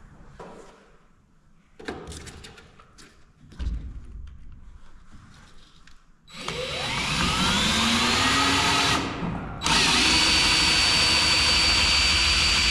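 A few light knocks, then a power drill spinning up with a rising whine about six seconds in and working into a 2x4, stopping briefly and then running again steadily at full speed.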